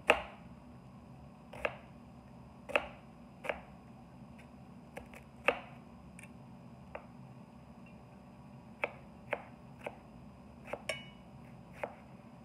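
Knife slicing through an onion, its blade knocking on the cutting board about a dozen times at an uneven pace.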